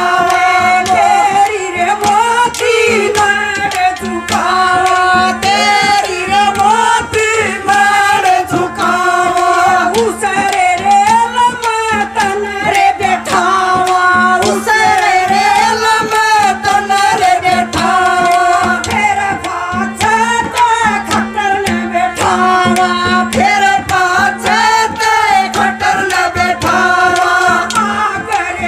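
A woman singing a Haryanvi folk song into a microphone over a public-address system, with drum accompaniment keeping a steady beat.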